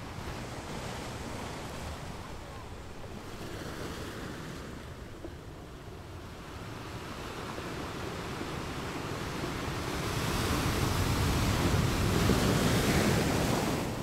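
Underwater noise through a camera housing: a steady hiss and low rumble of water that swells louder about ten seconds in and holds for a few seconds before dropping back.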